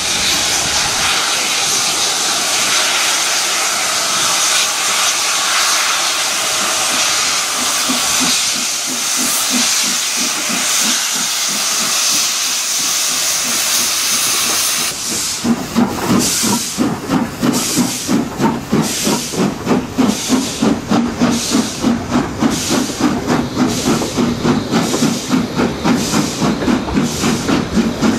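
Steam locomotive 53808, a Somerset & Dorset 7F 2-8-0, running in along the platform with a steady hiss of steam. About halfway through, the hiss gives way to the rhythmic clatter of the coaches' wheels over the track, a few beats a second.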